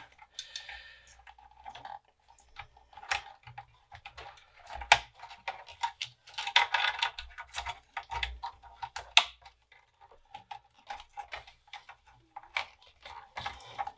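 Irregular clicks, taps and light rustling as cables and plastic connectors are handled and plugged into a floppy drive unit.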